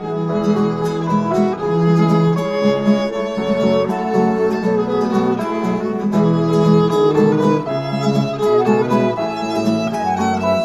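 Background music: a violin melody over plucked guitar accompaniment.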